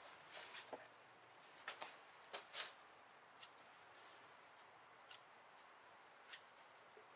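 Hand-work noise from greasing a snowmobile steering spindle: scattered short clicks and scrapes as the metal spindle and a grease brush are handled, bunched in the first three seconds and then a few single ones, over a quiet background.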